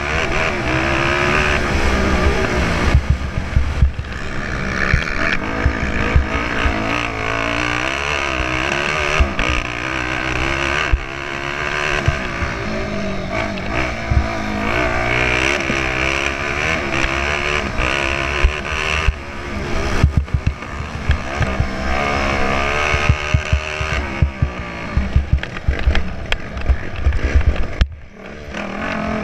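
Honda CRF450R's single-cylinder four-stroke engine, heard from onboard the bike, revving up and down continuously as it is ridden over rough dirt, with frequent knocks and rattles from the bike over bumps. The throttle is shut briefly near the end before the engine picks up again.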